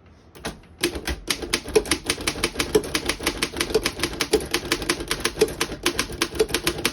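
1912 Underwood No. 5 manual typewriter being typed on: a steady, rapid run of typebar strikes on the platen, several a second. A couple of single clicks come first, and the run begins about a second in.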